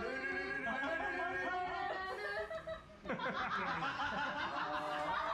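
A man laughing over background music. The laughter breaks out about three seconds in.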